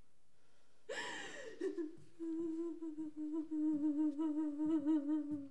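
A woman's voice: a sudden breathy cry falling in pitch about a second in, then a wordless hum held on one low note with a slight wavering, like a lament.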